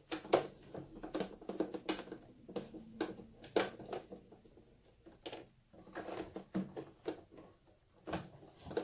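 Cotton fabric being handled and shifted at a sewing machine: irregular rustles, taps and clicks as the cushion-cover layers are lined up under the presser foot.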